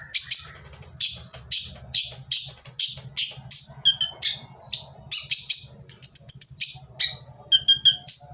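Kolibri ninja (purple-throated sunbird) calling: loud, harsh, high chirps repeated about twice a second, with quick trilled notes mixed in around the middle and near the end. This rough, busy call is used as a lure to set other kolibri ninja singing.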